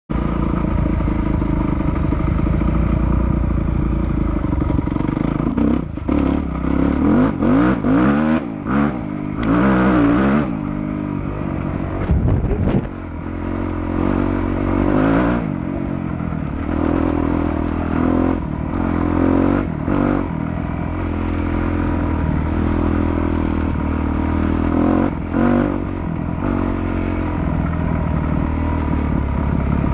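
250 cc four-stroke single-cylinder motocross bike engine running under way off-road. It is revved up and down again and again as the throttle is opened and rolled off, so the pitch keeps rising and falling, most busily in the first third.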